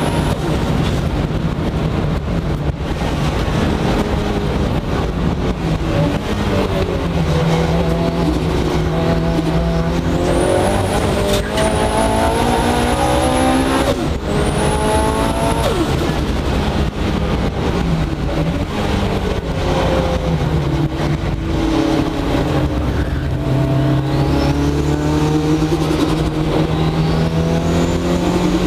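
Mitsubishi Lancer Evolution VIII race car's turbocharged four-cylinder engine heard from inside the cabin, running hard on track. The revs climb repeatedly and drop sharply at each gear change, with a thin high whistle rising over the engine at times.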